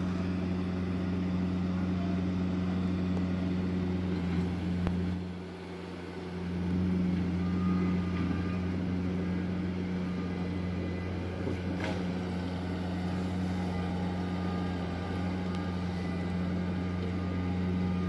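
An engine running steadily, a constant low hum that dips briefly about five seconds in.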